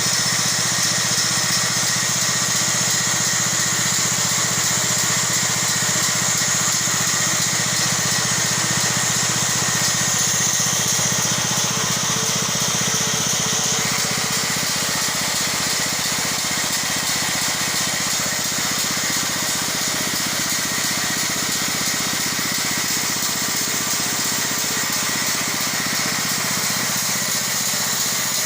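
Band sawmill engine running steadily during an engine test.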